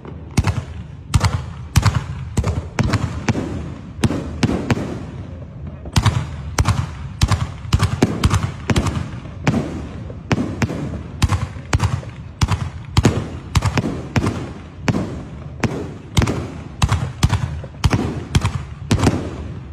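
Aerial fireworks firing in a rapid barrage: a steady string of sharp bangs, about three a second, without a break.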